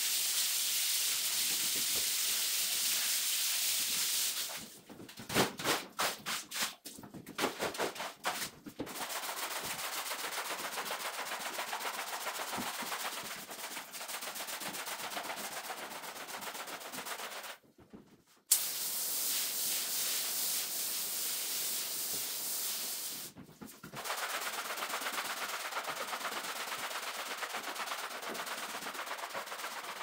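Sped-up rug washing: a steady hiss of water spray, then a run of quick rubbing strokes over the wet carpet, then steady fast-rippling scrubbing. The sound breaks off abruptly twice at cuts.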